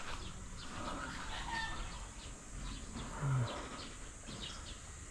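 Farmyard chickens clucking softly with scattered short high chirps, and one brief low sound about three seconds in.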